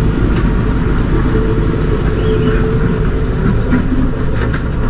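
Heavy goods vehicle's diesel engine running at low revs, a steady low rumble.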